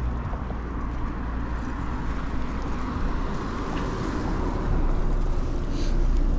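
Steady wind and road noise on the microphone during a bicycle ride on a road, with a low rumble that grows a little louder near the end.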